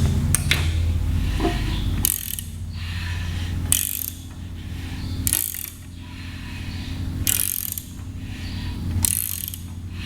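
Hand socket ratchet worked in repeated strokes on the engine, its pawl clicking in a burst about every one and a half to two seconds, over a steady low hum.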